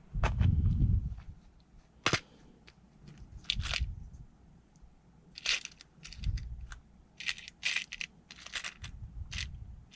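Handling noises from working on wiring with hand tools and small parts: a loud low thump in the first second, then scattered sharp clicks, small metallic clatter and crinkling.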